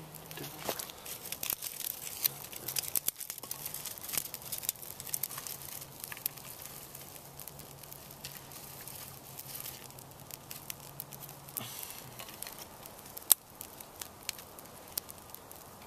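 Small twig and kindling fire crackling, with the snaps and rustle of thin dry sticks being laid onto it by hand. The crackling is busiest in the first few seconds, then thins out, with one sharp pop about thirteen seconds in.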